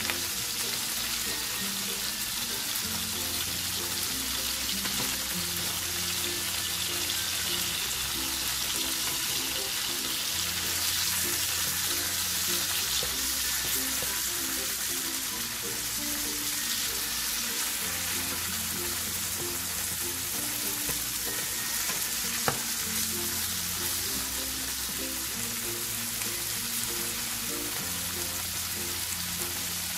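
Food sizzling steadily as it fries in oil in a pan, over light background music with a steady bass line. One sharp click sounds about two-thirds of the way through.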